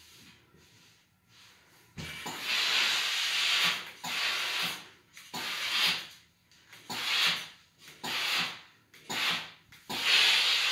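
Steam iron hissing in repeated bursts of about a second each, starting about two seconds in, as steam is shot onto a cotton t-shirt.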